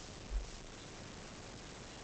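Steady faint background hiss with one brief low thump about a third of a second in.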